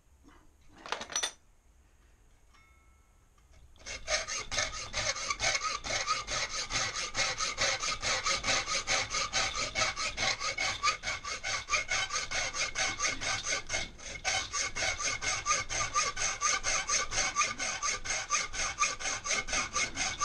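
Hacksaw cutting sheet aluminium clamped in a bench vise, in rapid, even back-and-forth strokes that begin about four seconds in and pause briefly near the middle. A single knock comes about a second in, before the sawing starts.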